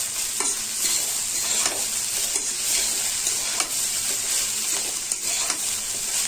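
Grated cauliflower stuffing sizzling as it fries in a steel kadhai, stirred with a flat spatula that scrapes across the pan about three times every two seconds over a steady frying hiss.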